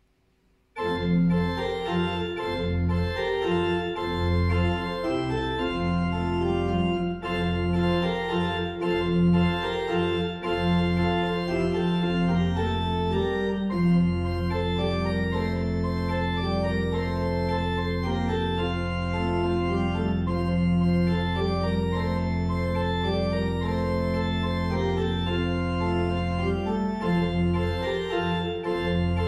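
Church pipe organ playing sustained full chords over long-held bass notes. It comes in suddenly about a second in, after near silence.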